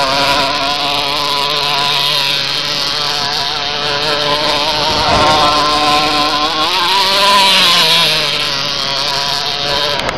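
Small glow-fuel (nitro) engine of a 4WD Pioneer XR radio-controlled monster truck with a tuned pipe, running as the truck is driven, its pitch wavering with the throttle. The pitch rises about five seconds in and eases back down near eight seconds.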